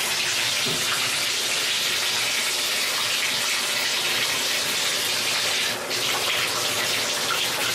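Bathtub faucet running, a steady rush of water pouring into the tub as a bath is drawn.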